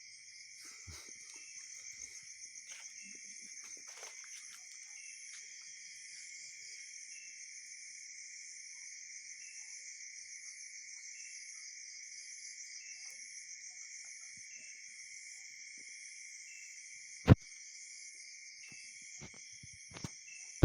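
Insects chirping in a steady high-pitched chorus, with a shorter chirp repeating about every second and a half. A single sharp click comes near the end.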